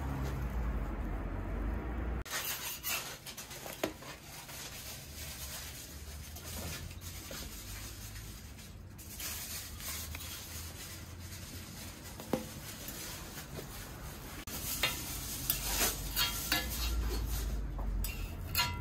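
Metal spatula scraping and tapping on a flat iron griddle, with a faint sizzle of batter cooking. There are a few sharp taps of metal on metal, most of them in the last few seconds.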